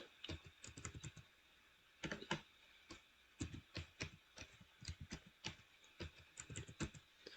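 Typing on a laptop keyboard, keystrokes in quick runs with short pauses between them, as an admin password is entered.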